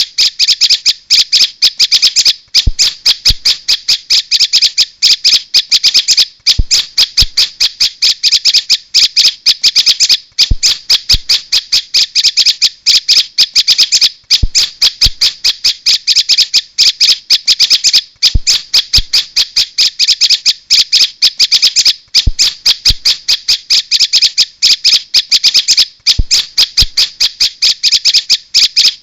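Prinia (prenjak) lure call played for bird trapping: a loud, rapid string of sharp chirps, many per second, repeating in runs of about four seconds with short breaks between them.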